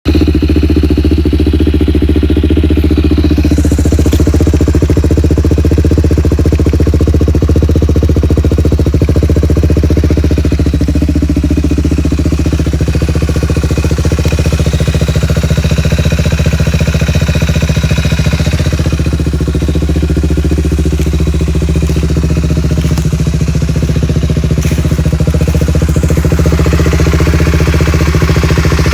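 2007 Suzuki LTR 450 ATV's single-cylinder four-stroke engine running, mostly at a steady idle with a few small rises and dips in speed. This is a quad whose owner reports hard starting, stalling and bad bogging.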